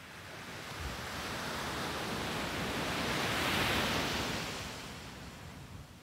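A low wave breaking and washing up a sandy beach: a rush of surf that swells over the first few seconds, is loudest about four seconds in, then dies away near the end.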